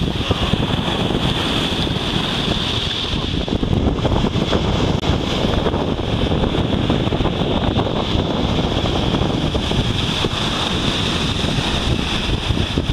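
Strong wind buffeting the microphone over the steady rush of waves breaking on a beach.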